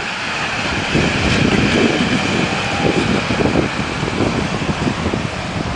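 Gusty wind buffeting the microphone in irregular low rumbles, over a steady hiss of light rain that has just eased off.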